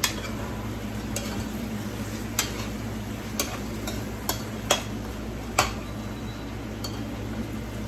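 Metal spoon stirring chicken feet in a skillet, clinking against the pan about nine times at uneven intervals, over a steady sizzle of frying.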